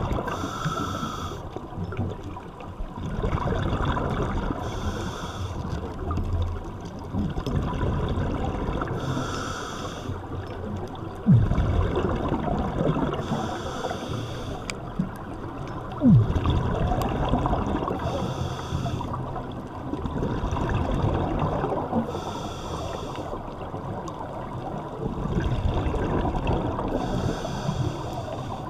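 Scuba regulator breathing heard underwater: a hissing rush of exhaled bubbles about every four to five seconds over a steady bubbling rumble. Two sudden louder knocks stand out about a third and just over halfway through.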